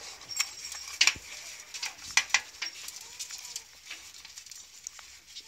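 Beagles eating bone scraps from a metal pan: irregular sharp crunches and clicks of chewing and licking, several close together about one and two seconds in.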